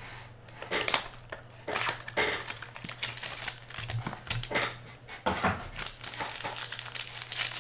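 Trading-card packaging being handled and torn open: irregular crinkling and tearing of wrapper material, over a steady low hum.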